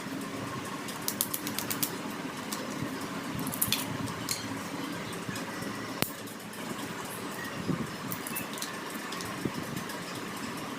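Scattered light clicks and taps in small clusters over a steady background rumble with a low hum.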